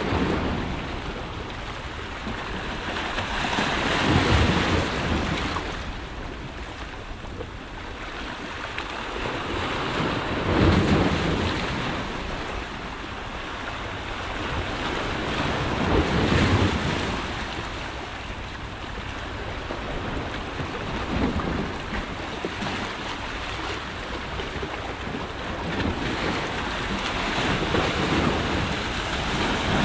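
Sea waves breaking and washing over shoreline rocks, a steady surf that swells about every six seconds as each wave comes in.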